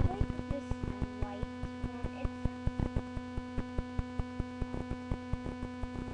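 Steady electrical hum with a quick, even run of clicks over it, several a second.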